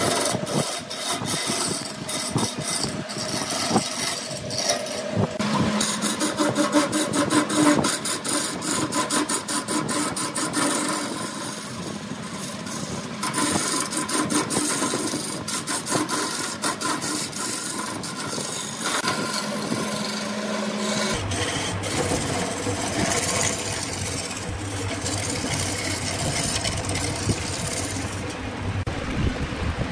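Woodworking tool scraping and cutting wood in quick, repeated strokes with clicks and knocks. In the later part a steady low machine hum runs underneath.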